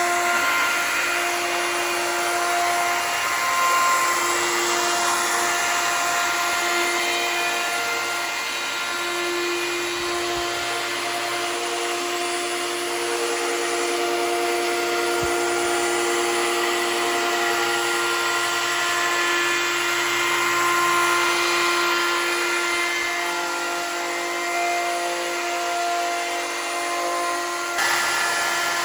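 Belt sander with an 80-grit belt running continuously over a hardwood hickory tabletop: a steady motor whine over a sanding hiss that swells and eases a little as the sander is moved.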